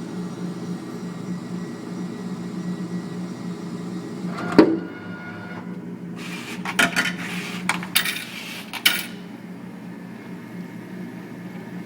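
Vending machine's motorised delivery mechanism running with a steady hum. There is a single loud knock about four and a half seconds in, then a run of rattling clatter between about six and nine seconds in.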